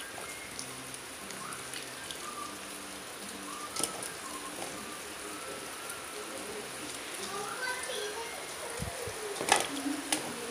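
Wet brinjal slices being lifted out of a steel bowl of water and set down on a clay plate, with dripping, splashing and light clatter, and a few sharp knocks, the loudest near the end.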